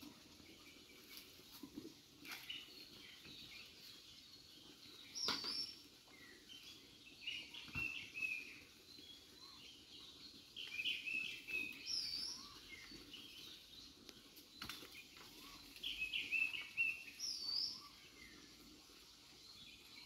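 Birds calling: clusters of short chirps and a high two-note call that repeats about every five or six seconds. A few faint brief knocks and rustles come from fallen kokum fruit being picked up among the leaves.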